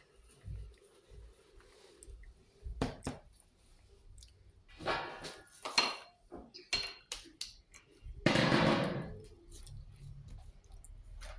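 Kitchen handling sounds: dishes and utensils knocking and clinking now and then, with short bursts of rustling noise, the loudest a longer one about eight seconds in.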